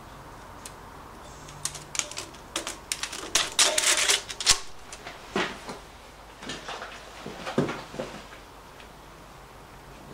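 Light metallic clicks, taps and clinks: a quick clattering run about two to five seconds in and a few more later, as a copper head gasket is fitted over the studs of a Lister D engine's cylinder and the cylinder head is lowered onto them.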